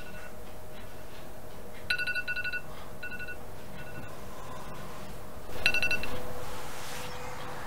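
Electronic ringtone from a tablet on a bedside table. Each ring is a quick trill of beeps followed by a couple of single beeps, repeating about every four seconds, and the second ring is louder, with a short swell of noise after it. A faint steady hum runs underneath.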